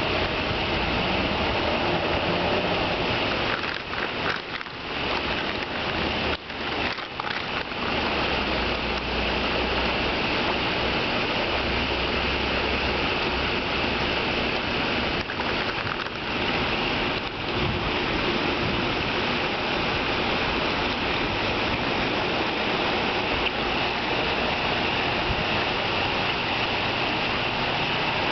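Steady splashing and running water in a koi pond crowded with koi at the surface, with a brief drop in level a few seconds in.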